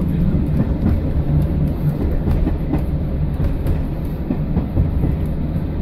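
Class 115 diesel-mechanical multiple unit (built 1960) on the move, heard from inside the driver's cab: a steady low rumble of its diesel engines and wheels running on the rails.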